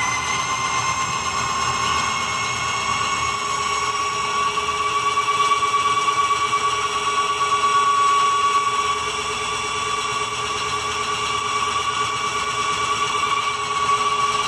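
Power drill running at high speed to spin a rewired LG washing-machine direct-drive motor used as a generator, under a load of about 150 watts. It makes a steady whine with several pitched tones, rising slightly in pitch over the first two seconds and then holding. The generator load is heavy enough to overpower the drill.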